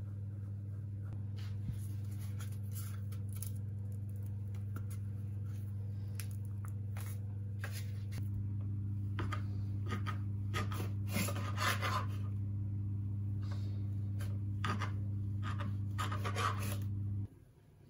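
The paper wrapping of a tube of refrigerated cinnamon-swirl dough rustling and scratching as it is peeled away and the dough unrolled. A steady low hum runs underneath and cuts off suddenly near the end.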